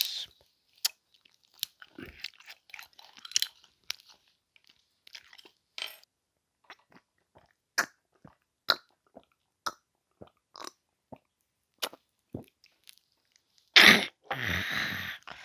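Close-miked mouth sounds while drinking soju: sparse wet clicks and smacks of sipping and chewing. About 14 seconds in comes a loud, breathy exhale after the shot.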